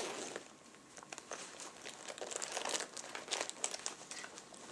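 Crinkling and rustling of something being handled, a run of small irregular crackles.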